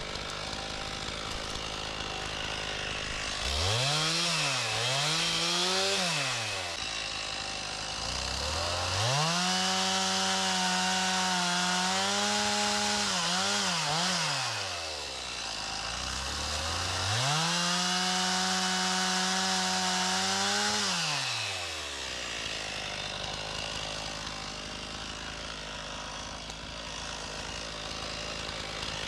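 Stihl MS391 two-stroke chainsaw bucking logs into firewood. It revs to full throttle three times, the first a short double blip and then two longer cuts of about four to five seconds, and drops back to idle between them.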